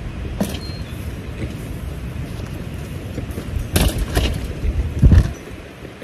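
Wind rumbling on the microphone, with a few short knocks and rustles about four seconds in and a louder one about five seconds in.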